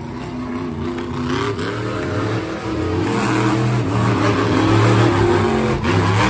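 Monster truck engine revving hard as the truck drives across a dirt arena, its pitch rising and falling and getting louder through the first few seconds.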